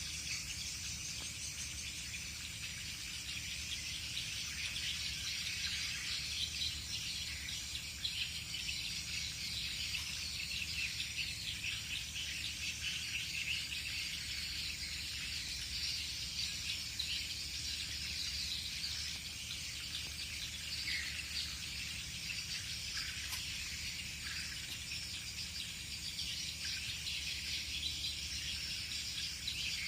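Steady chorus of insects, with a few brief bird chirps in the second half.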